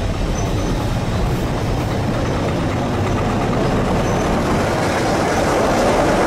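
Class 03 diesel shunter (Gardner 8L3 diesel) train running slowly: a steady engine rumble mixed with wheel-on-rail noise, growing a little louder near the end.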